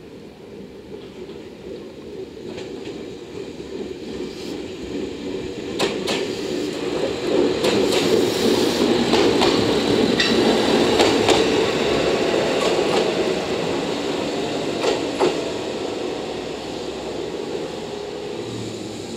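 JR West DEC700 diesel-electric railcar passing slowly. Its diesel engine runs, growing louder as the car comes close and fading as it draws away, with a few sharp clicks as the wheels cross rail joints.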